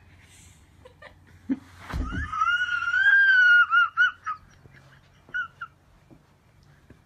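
A cat yowling: a thump about two seconds in, then a high, wavering cry lasting about two seconds, followed by two short squeaks.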